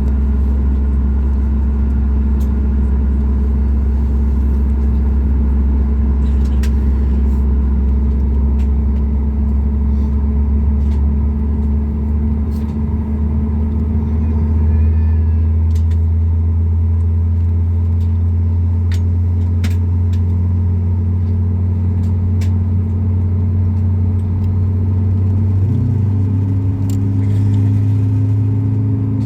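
Steady cabin drone of a Boeing 737 MAX 8 on the ground: its CFM LEAP-1B engines idling under the hum of the air conditioning, with a few faint clicks. A couple of new steady tones join near the end.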